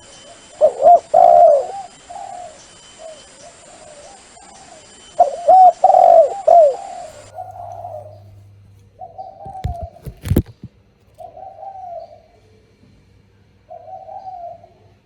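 Spotted dove cooing in loud, rapid phrases about a second in and again around five seconds in, then softer repeated coos. A brief low thump comes about ten seconds in.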